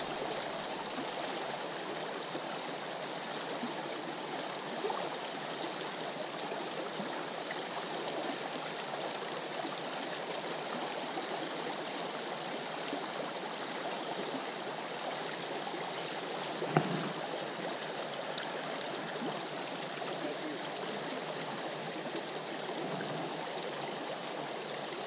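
Creek water flowing steadily, with one brief knock about two-thirds of the way through.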